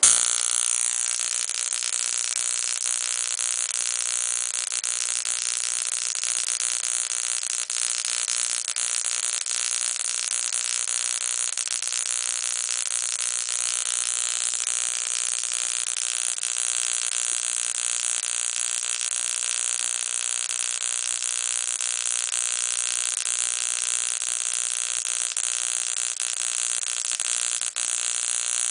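High-voltage sparks from a 12 V ignition coil jumping the gap of an inline spark plug wire tester, firing so fast that they merge into a steady sizzling buzz. It starts abruptly right at the start.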